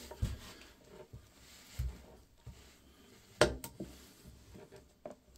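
A few dull knocks and light scrapes as a ceramic toilet bowl is shifted and pushed back toward a tiled wall. The loudest knock comes about three and a half seconds in.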